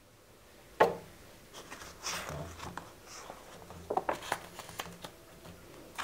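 Hands turning and handling the pages of a stiff picture book: a sharp tap about a second in, then soft rubbing and rustling as the page is turned and smoothed flat.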